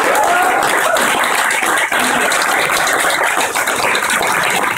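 Crowd applauding: dense, steady clapping from a room full of people.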